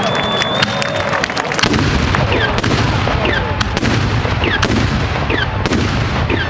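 Fireworks finale: a dense barrage of salutes going off in rapid succession, sharp loud bangs several times a second, with a few short falling whistles among them.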